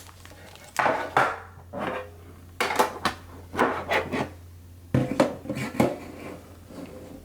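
Trading cards being handled in a metal card tin: a string of light, irregular clatters and scrapes of card against thin metal.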